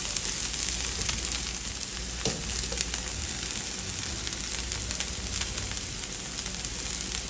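Consommé-dipped tortillas and melted cheese frying on a griddle: a steady sizzle, with a couple of light clicks about two seconds in.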